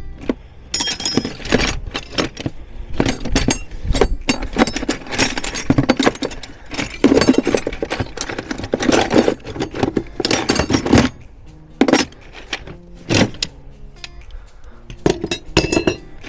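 Metal spanners clinking and clattering against each other in irregular bursts as someone rummages through a toolbox for the right size.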